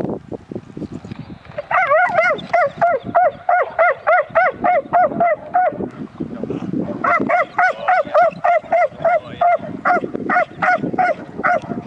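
Belgian Malinois-type dog barking in rapid, rhythmic volleys of about four barks a second at a small wooden box. It starts about two seconds in, breaks off for a moment around the middle, then barks on steadily.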